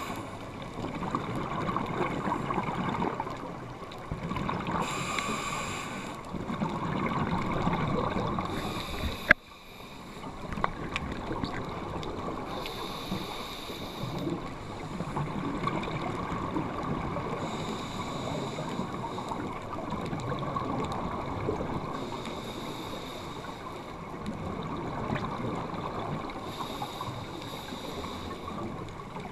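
Underwater sound of scuba diving: regulator breathing, with a hiss that comes back every four to five seconds and bubbling, gurgling exhaled air between. A single sharp click about nine seconds in.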